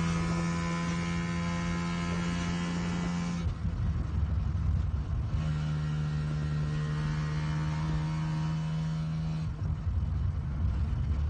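Van engine heard from inside the cab, droning at steady revs while driving. The drone drops away twice for a couple of seconds, leaving a lower rumble, as the revs change.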